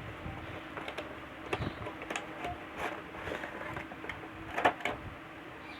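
Cardboard product box and its contents being opened and handled: scattered irregular clicks, taps and rustles, with a louder knock about four and a half seconds in, over a faint steady hum.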